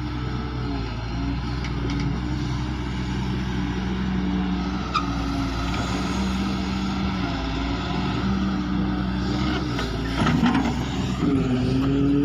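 Excavator's diesel engine running steadily, its pitch stepping up and down every second or two, with a sharp click about five seconds in and a brief rattle near the end.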